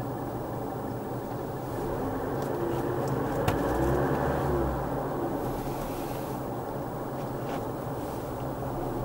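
Steady engine and tyre road noise heard inside a car's cabin while cruising on a highway. There is a single sharp click about three and a half seconds in.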